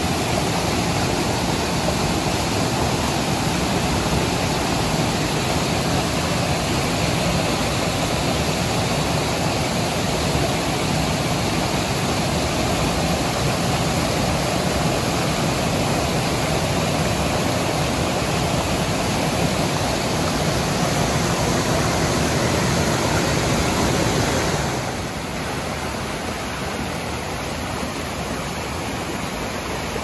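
Steady rush of falling water from a waterfall. About 25 seconds in it drops to a quieter, duller level.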